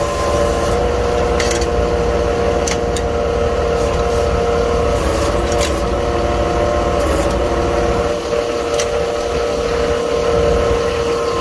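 A jet fuel truck's hose reel rewinding the delivery hose, its drive running with a steady drone over the truck's running engine. A few light clicks and knocks of the hose and nozzle come through it.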